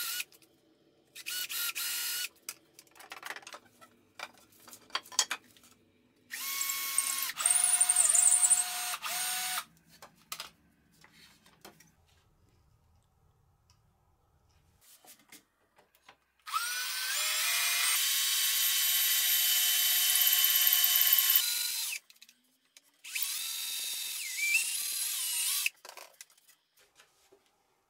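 Cordless drill running in four bursts of about one to five seconds, its motor pitch stepping up and down with the trigger, drilling a guide hole in a wooden base.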